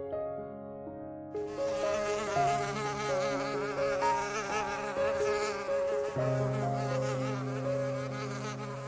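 Insect buzzing in flight: a wavering buzz that starts about a second and a half in, over steady held background tones.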